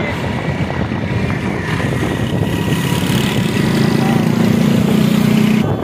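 Road traffic: motorcycle and bus engines running close by, with a low engine drone growing louder in the second half that cuts off suddenly near the end.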